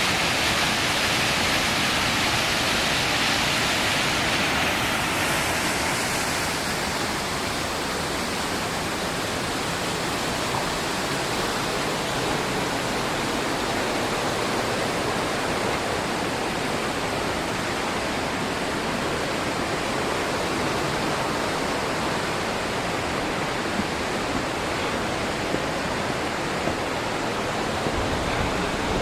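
Shepperd's Dell waterfall plunging: a steady rush of falling water, a little brighter and louder for the first six seconds or so, then settling to an even roar.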